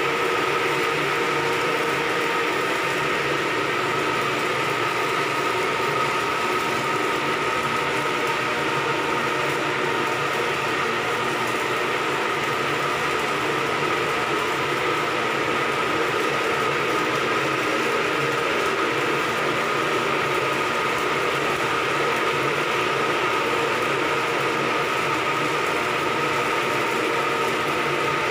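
Electric arc welding crackling steadily without a break, with a steady high machinery whine underneath.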